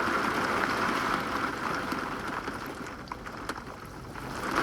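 Wind-driven rain and strong thunderstorm wind gusts, a steady rushing noise with faint scattered ticks, easing a little about three seconds in before building again.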